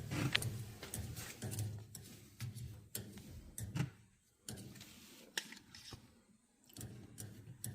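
Faint scattered clicks and handling noises of leak-detection soap being applied to the joints of a newly piped gas line, with a couple of near-quiet moments in the middle.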